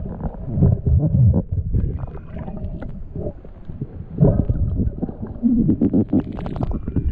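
Underwater sound through a camera housing: low rumbling water movement with many short clicks and knocks as a speared fish is hauled in on the spear shaft and its line.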